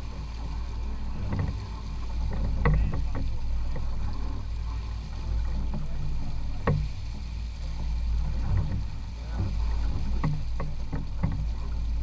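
Fishing boat under way: a steady low engine drone with irregular slaps and splashes of water along the hull and wake.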